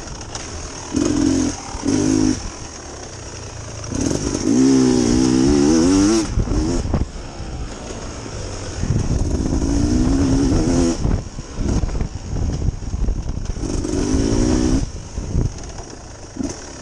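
Dirt bike engine being ridden with the throttle worked on and off. There are two quick blips early on, then longer pulls in which the pitch climbs before dropping back to a lower drone between them.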